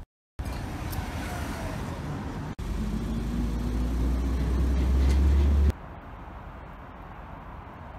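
Street traffic noise with a vehicle's low engine rumble that grows louder over about three seconds, then cuts off abruptly to quieter street ambience.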